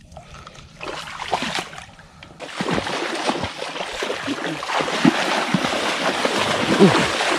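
Feet splashing through shallow, muddy creek water as a person wades and runs quickly. It starts suddenly about two and a half seconds in, after a quieter stretch of faint water sounds, and goes on as a dense, continuous splashing.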